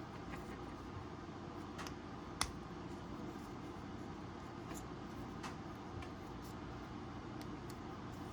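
A few faint ticks and one sharp click about two seconds in, from small parts being handled, over a steady low room hum.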